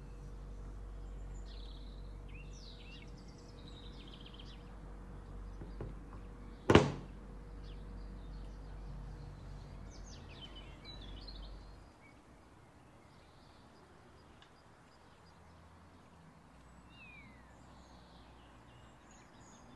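Small birds chirping now and then in the background over a low steady rumble that drops away about twelve seconds in. One sharp knock nearly seven seconds in is the loudest sound.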